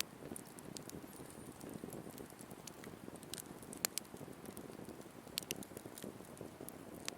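Wood campfire burning with a steady low rush, crackling and popping at irregular moments, with one sharp loud pop about four seconds in.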